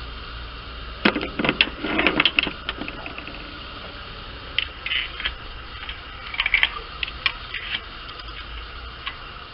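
Ratchet wrench clicking in short bursts of rapid metallic clicks as a spark plug is unscrewed, with a steady low hum underneath.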